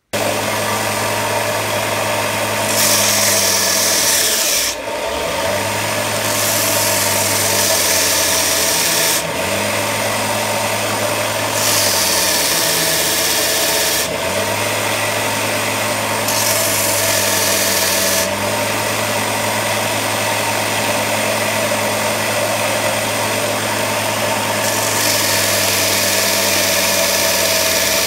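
Electric bench belt sander running steadily while a wooden knife-handle scale is pressed flat against the abrasive belt, giving about five passes of a rasping hiss a few seconds each over the motor's hum, which sags slightly under load.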